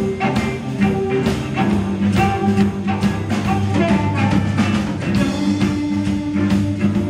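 Live blues band playing: amplified harmonica, played into a vocal microphone, carries the lead over electric and acoustic guitars and a drum kit keeping a steady beat.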